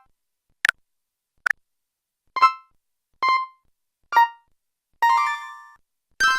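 Motorola feature phone's built-in synthesized system tones played one after another: two very short blips, then brief chime-like notes about a second apart, and near the end a longer chord that rings out and fades.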